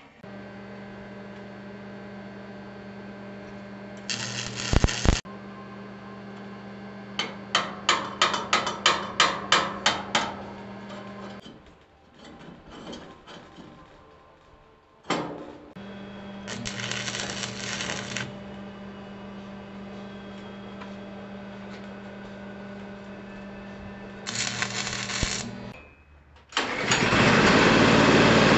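Drill press motor running with a steady hum while a hole saw cuts into wood in short loud bursts, including a quick run of about ten pulses. Near the end, a small pull-start gas engine fires up and keeps running loudly.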